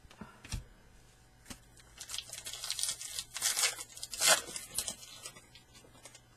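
Shiny wrapper of a Topps Fire baseball card pack being torn open and crinkled by hand, a run of quick rips and rustles from about two seconds in, loudest a little after four seconds. A few light knocks come just before it.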